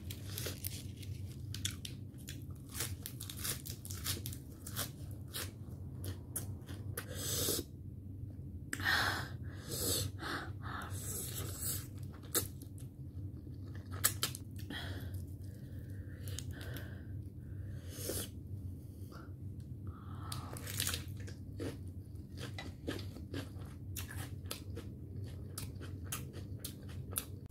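Close-miked eating of steamed momos and spicy instant ramen noodles: wet chewing and smacking in many short clicks, with noodles slurped up from the fork and some crunchy bites, over a low steady hum.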